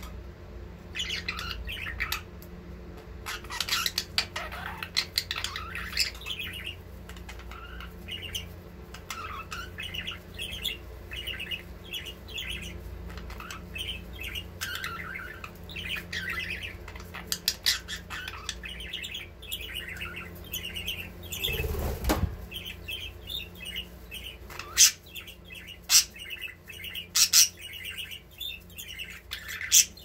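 Budgerigars chattering in a continuous run of short chirps while mating, with a brief flurry of wing-flapping about two-thirds of the way in and several sharp taps near the end.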